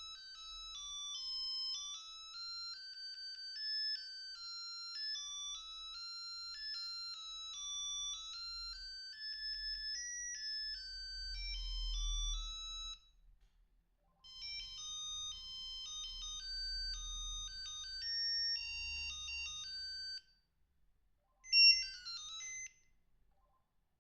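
Mitsubishi Trium Astral MT-140 mobile phone playing its built-in ringtones through its small speaker: high, beeping electronic melodies. One tune breaks off just past halfway, a second starts a moment later and stops, and near the end a short, louder tone slides downward.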